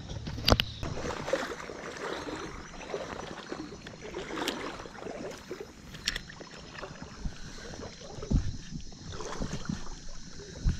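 Water sloshing and splashing, with several sharp knocks, the loudest about half a second in.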